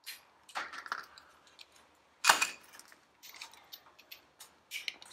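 Metal hand tools clinking and clattering, a string of short scattered knocks with one louder clank about two seconds in.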